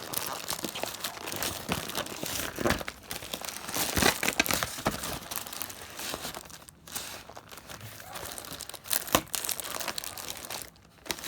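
Crinkly packaging being crumpled and torn open by hand, an irregular run of crackles and rustles with a few short pauses.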